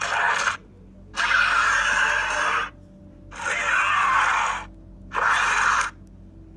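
Skull Crawler monster sound effect: four harsh, raspy, hiss-like creature calls, the second and third longest at about a second and a half each, separated by short gaps.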